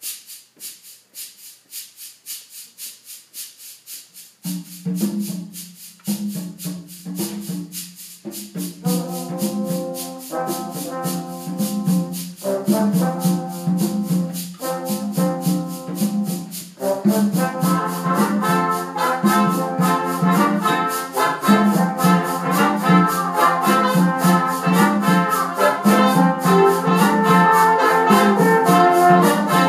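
Brass ensemble with percussion playing an arrangement of a traditional South African folk song. A shaker keeps a steady rhythm alone at first, about four strokes a second; low brass come in with a repeated figure about four and a half seconds in, and the band grows fuller and louder from about seventeen seconds in.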